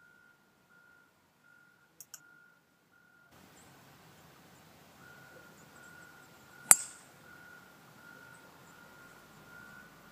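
A golf club striking a ball off the tee: one sharp, loud crack about two-thirds of the way in. A faint double click comes about two seconds in.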